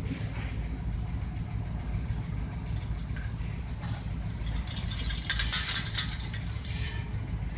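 Low steady rumble of a vehicle engine running, with a burst of rapid jingling clicks about four and a half seconds in that lasts about two seconds and is the loudest sound.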